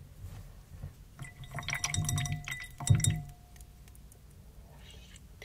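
A paintbrush swished and tapped in a glass of water, clinking against the glass. The clinks come quickly for about three seconds, starting about a second in, with a light ringing of the glass under them and one louder knock near the end of the flurry.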